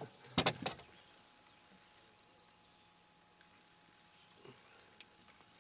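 A brief loud burst of knocks and rustling about half a second in, then a faint bird call: a quick run of about seven short, high, falling chirps.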